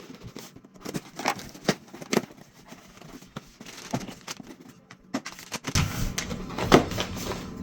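A parcel's packaging being handled and opened by hand: irregular clicks, rustles and tearing. A steady low hum comes in about two-thirds of the way through.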